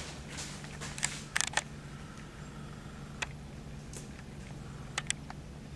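Handheld camcorder handling noise: a few scattered sharp clicks over a steady low hum, with no speech.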